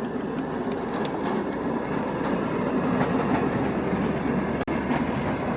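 Nevada Northern Railway train running on the rails: a steady rumble with faint scattered clicks. It breaks off for an instant about four and a half seconds in.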